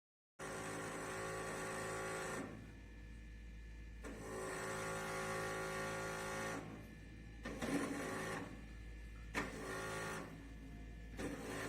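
Brio top-loading water cooler running with a mechanical hum of many steady tones that grows louder and quieter every couple of seconds, with some rattling and a sharp click in the second half.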